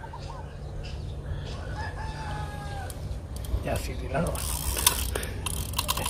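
Fishing reel clicking in rapid runs as a hooked heavy fish is fought, starting about halfway through and getting louder near the end.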